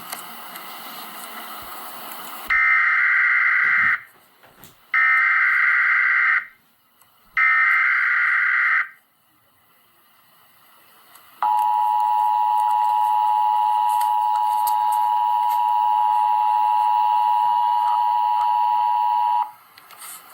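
Emergency Alert System broadcast tones: after a couple of seconds of hiss, three short bursts of digital SAME header data, then the steady two-tone EAS attention signal held for about eight seconds before it cuts off.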